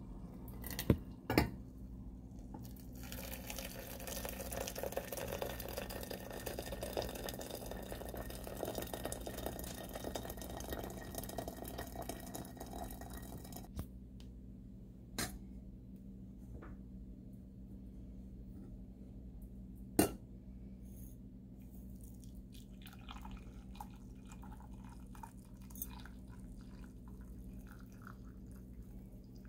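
Water poured from a white kettle into a stainless steel teapot, a steady splashing pour of about ten seconds that follows two sharp clinks. A few single clinks come after it, and near the end tea trickles from the teapot into a ceramic mug.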